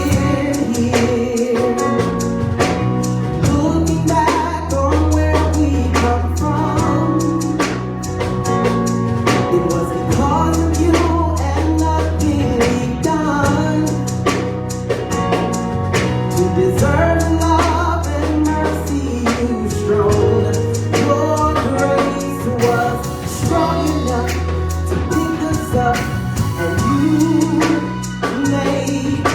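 Gospel worship music: a band with drum kit and bass guitar plays while a singer carries on with wordless vocal runs.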